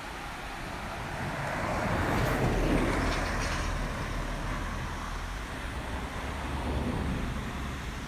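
A road vehicle passing by, swelling to its loudest two to three seconds in and then fading, with a smaller swell near seven seconds, over a steady hiss.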